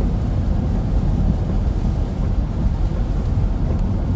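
A car driving on a rain-wet road, heard from inside the cabin: a steady low rumble of road, tyre and engine noise.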